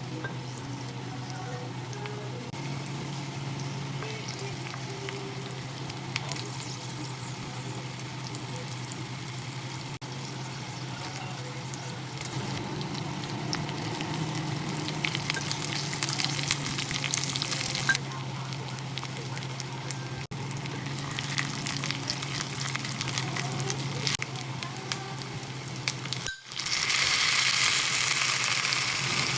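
Food frying and sizzling in a pan while it is stirred, over a steady low hum. The sizzle grows louder and brighter about three seconds before the end.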